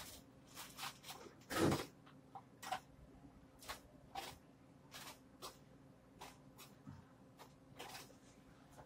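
Irregular light clicks and knocks of packaged food being handled and set into a store display case, with one louder knock about two seconds in, over a steady low hum.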